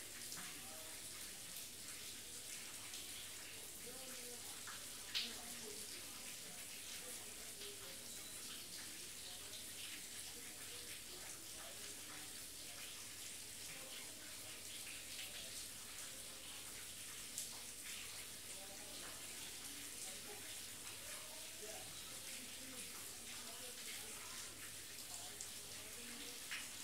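Steady rain, a soft even hiss with faint pattering drips, broken by a few sharp clicks, the loudest about five seconds in.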